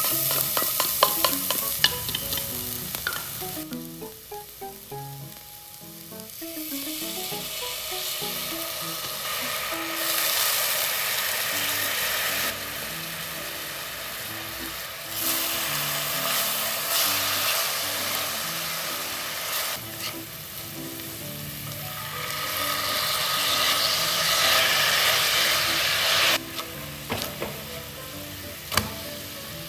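Minced garlic sizzling in hot oil in a nonstick pan. The sizzle swells loudly several times as sauces are poured in, with clicks and scrapes from a spatula stirring it.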